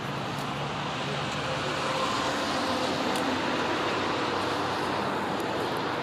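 Steady outdoor rushing noise that swells slightly from about two to four seconds in, with a faint low hum beneath it.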